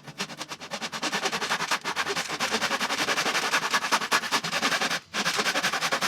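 Power tool running with a fast, even rattle of rapid strokes, stopping for a moment about five seconds in, then starting again.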